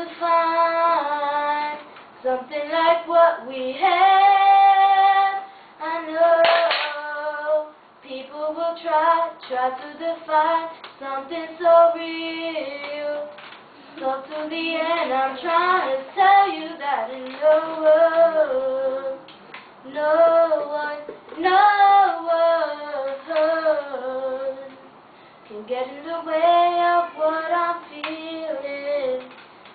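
A girl singing solo and unaccompanied: one voice in sung phrases with held, wavering notes, broken by short pauses between lines.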